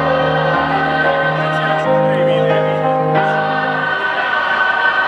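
Live concert music: a choir-like, gospel-style vocal hook with sustained chords over a bass note. The bass drops out about four seconds in.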